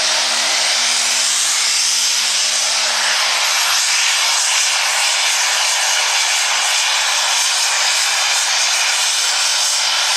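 Light Pro Stock pulling tractor's turbocharged diesel engine running at full throttle under load as it pulls the sled down the track, loud and steady.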